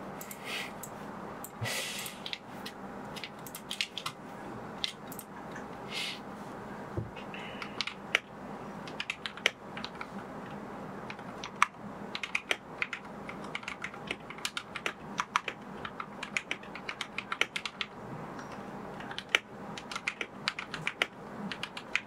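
Typing on a Royal Kludge RK71 mechanical keyboard fitted with milky green linear switches: a few scattered keystrokes at first, then fast continuous typing from about eight seconds in.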